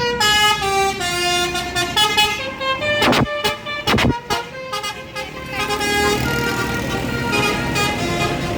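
Basuri, a multi-tone musical bus horn, playing a tune of stepped notes. About three seconds in come two short, harsh bursts about a second apart. The tune starts again more faintly near the end over traffic noise.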